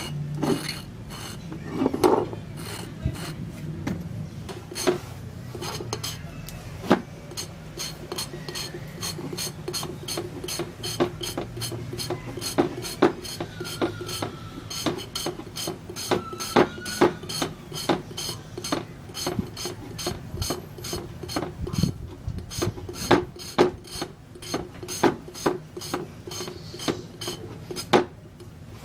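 Rapid, repeated hand-worked scraping strokes, like a file or stiff brush rasping on a part, over a low steady hum.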